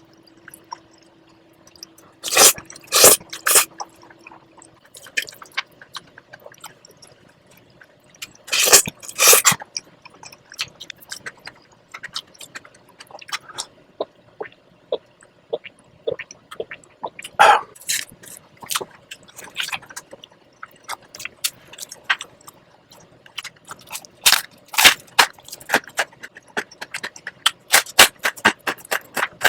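Close-miked eating of cream-sauce spaghetti: wet chewing and mouth sounds broken by sharp clicks and scrapes of cutlery on the plate, coming in clusters throughout.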